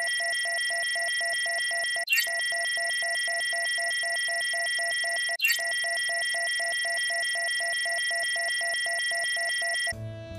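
Synthesized scanner sound effect: steady high electronic tones with a fast, even beeping pulse. It restarts twice, each time with a short upward sweep, and cuts off near the end.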